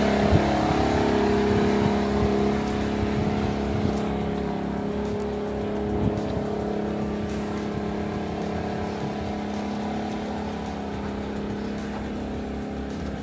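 An engine running steadily at an even pitch, slowly growing fainter, with a few faint clicks.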